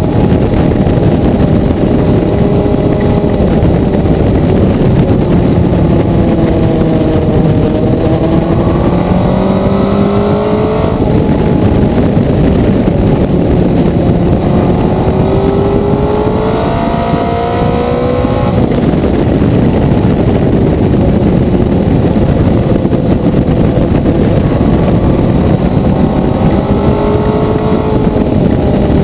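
Motorcycle engine pulling hard, its pitch climbing under acceleration and dropping sharply at two upshifts, about a third of the way in and again a little past halfway. Later the engine eases off and climbs again near the end, all under heavy wind rush over the microphone.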